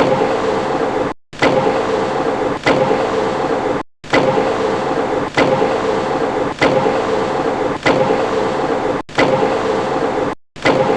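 Metal lathe running under cut, a steady motor hum with a constant mid-pitched whine over cutting noise. The sound breaks off abruptly several times and starts again straight away.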